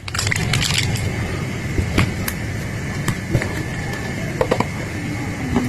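Brief scraping, then scattered small clicks and ticks from work on an Oppo A53 smartphone during a battery replacement, over a steady low rumble.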